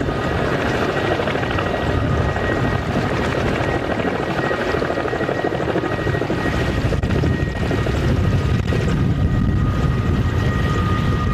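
Kamov Ka-32 coaxial-rotor helicopter lifting off the ice and climbing away: rotor noise with a steady high turbine whine running over it, and the low rotor rumble grows stronger about halfway through.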